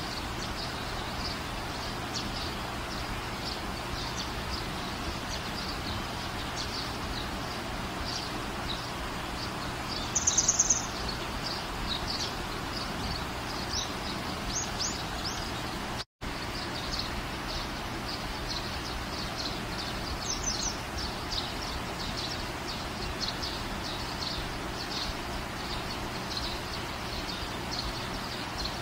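Small birds chirping over a steady background noise, with quick short chirps all through and a louder rapid run of chirps about a third of the way in. The sound cuts out for an instant about halfway through.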